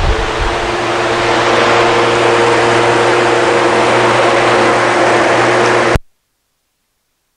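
Steady, loud machine noise: an even rushing hiss over a low hum, cut off abruptly about six seconds in.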